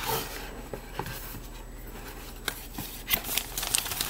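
Hands handling a cardboard board book, pages and flaps turned with a few light clicks and rubbing. Paper rustling picks up near the end as the wrapping in the box is handled.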